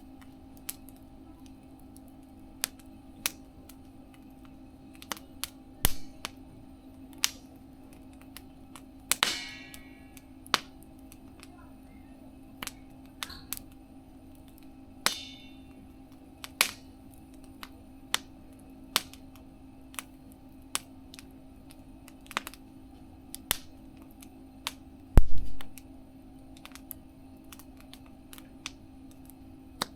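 Wood fire crackling in a mesh fire stove: irregular sharp pops and snaps over a steady low hum. There are short hissing spurts about nine and fifteen seconds in, and a low thump around twenty-five seconds.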